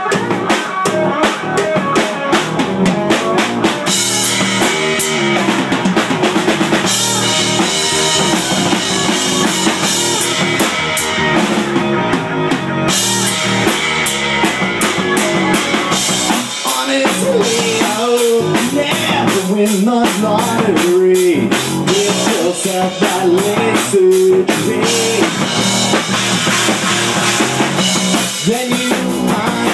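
A rock band playing live, with drum kit, electric guitar and keyboard; the drums are prominent, with kick, snare and rimshots.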